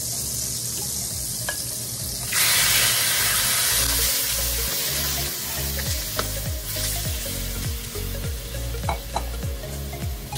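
Raw chicken pieces going into hot butter in a nonstick wok: a sudden loud sizzle about two seconds in that keeps on. The pieces are then stirred with a spatula, which scrapes and taps against the pan again and again over the frying.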